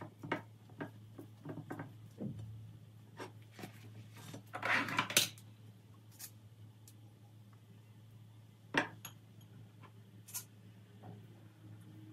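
Kitchenware being handled: scattered light clinks and knocks, with a louder rustling scrape about five seconds in and one sharper knock a few seconds later, over a steady low hum.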